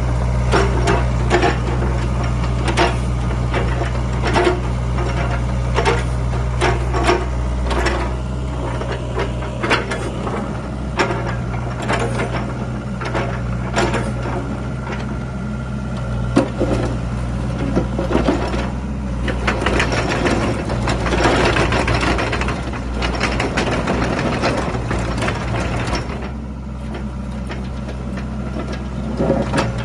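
A Sany SY60C mini crawler excavator's diesel engine runs steadily while the machine works, with many sharp metallic clanks and knocks. For several seconds past the middle, a louder rushing noise joins in as the boom, bucket and tracks are moved.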